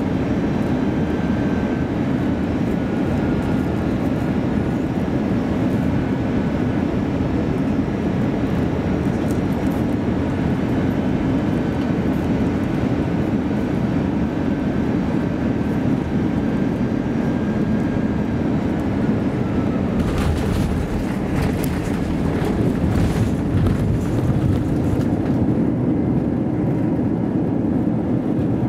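Cabin noise of an Airbus A321-200 on final approach: a steady rumble of engines and airflow with a faint high whine. About twenty seconds in the jet touches down, and the noise turns to a rougher rumble with knocks and clatter as the wheels roll along the runway.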